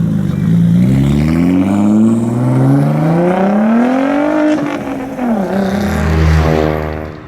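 Audi RS4 B5's twin-turbo V6 revving: the engine note climbs, climbs again in a long pull to a peak about four seconds in, drops, then holds lower and fades out near the end.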